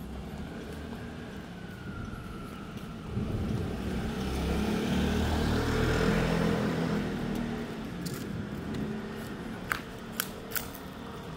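Thunder rolling: a deep rumble swells a few seconds in, is loudest around the middle and dies away, followed by a few sharp clicks near the end.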